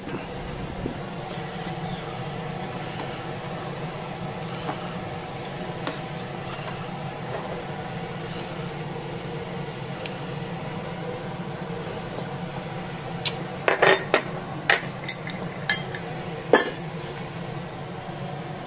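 Kitchen utensils clinking against dishes and pans: light taps throughout, then a quick run of sharp metal clinks near the end, over a steady hum.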